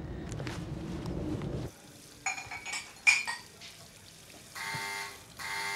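Low outdoor rumble of traffic that cuts off suddenly, then a few short clinks of dishes at a kitchen sink. An electric door buzzer then sounds twice, each ring under a second, the signal that someone is at the door.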